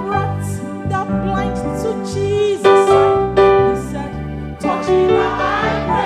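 Gospel church music: sustained keyboard chords over a pulsing bass line, with a singing voice.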